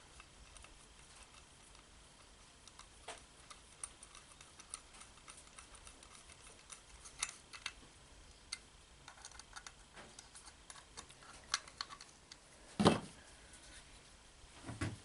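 Light, scattered clicks and taps of the small parts of a throttle-body injection unit being handled, with one louder knock near the end.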